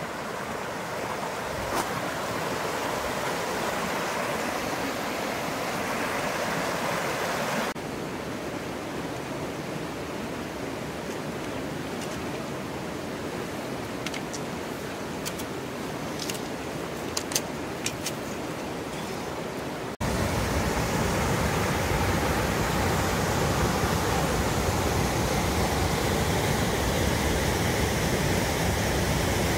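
Mountain creek water rushing over rocks: a steady hiss of flowing water. A few sharp taps come near the middle. From about two-thirds in, the rush is louder and fuller, from a stretch of rapids.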